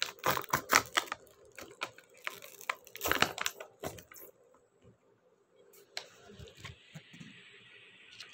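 Foil lid being peeled off a plastic sweet tray: a quick run of sharp crinkling and crackling for about four seconds, then a few scattered clicks and faint rustling.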